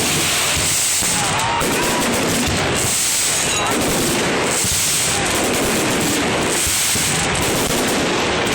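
Fireworks display going off: a dense, continuous barrage of rapid crackling bangs.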